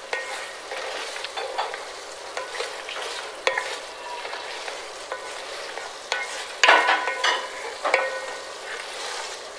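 A wooden spatula stirs and scrapes thick chicken masala in a metal pot over a steady sizzle as the last of the liquid cooks off. There is a louder scrape about seven seconds in.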